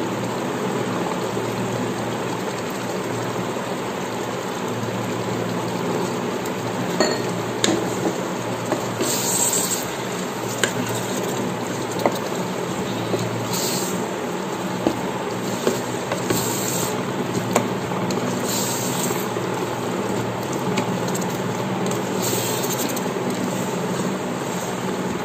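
Wooden spatula stirring chicken gravy in an electric rice cooker's inner pot, scraping and tapping against the pot several times over a steady sizzling, bubbling hiss as the chicken cooks.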